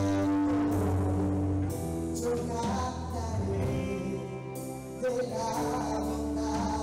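Live church worship music: a band with keyboard, electric guitar and drums playing a praise song, with a singer and sustained bass notes.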